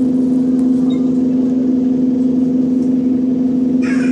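Bus engine's air compressor running with a loud, steady droning hum, heard from inside the bus. A brief hiss comes near the end.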